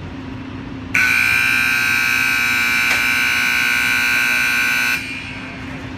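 Arena game buzzer sounding one loud, steady, harsh tone for about four seconds, starting suddenly about a second in and cutting off abruptly.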